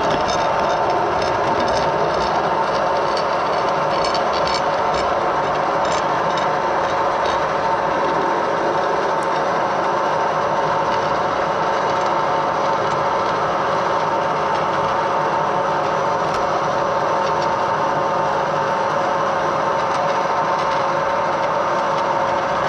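Edgwick metal lathe running under power during a thread-cutting pass on a steel lead screw: a steady whine from the machine's drive over an even mechanical running noise, with faint light ticks in the first several seconds.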